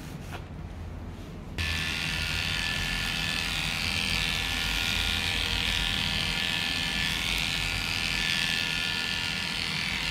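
Electric dog clippers running steadily as they shave through a Maltese's matted coat, starting about a second and a half in after a quieter stretch.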